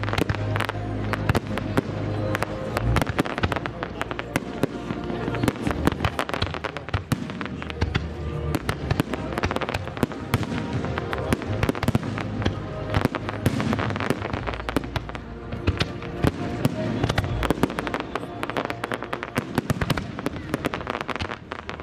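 Fireworks display: a dense, continuous barrage of bangs and crackles from aerial shells bursting, with music playing underneath.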